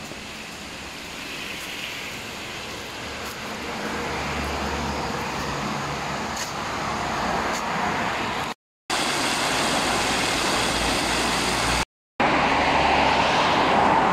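Road traffic noise: passing vehicles and a low engine hum, growing steadily louder, cut by two brief gaps of dead silence.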